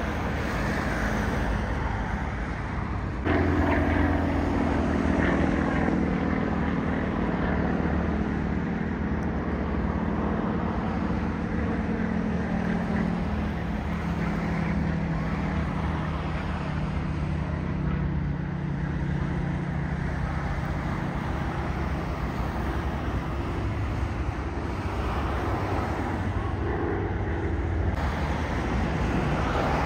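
Propeller aircraft flying past with an engine drone that jumps up in level about three seconds in. Its pitch then falls slowly as the aircraft passes and moves away.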